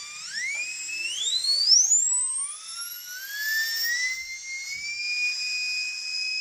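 Air-turbine dental drill handpiece spinning up on compressed air while driving a coupled brushless RC motor as a generator load. A high whine climbs in pitch in small steps for about five seconds, then holds steady over the hiss of escaping air.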